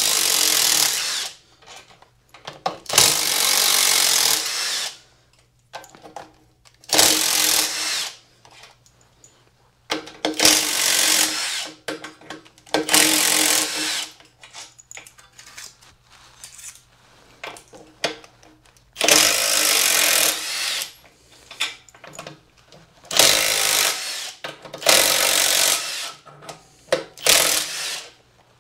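Cordless power driver running in about nine short bursts of a second or two each, with pauses between, as it backs the crankcase cover bolts out of a Briggs & Stratton Intek single-cylinder engine.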